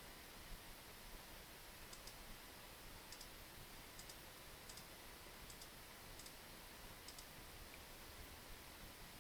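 Faint paired clicks of a computer mouse button, about seven of them spaced roughly a second apart, over a steady background hiss.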